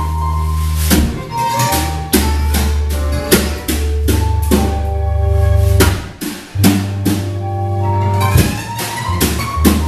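Jazz band playing upbeat dance music on drum kit, with kick and snare hits in a steady beat, a bass line of long held notes, and pitched melody lines above.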